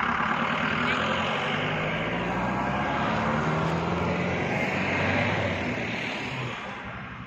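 A vehicle driving on a road: a steady engine hum under road and wind noise, easing off somewhat near the end.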